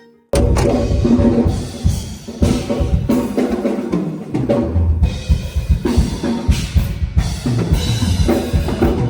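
Full band music led by a drum kit with kick and snare, with bass and keys underneath, starting abruptly about a third of a second in after a brief silence.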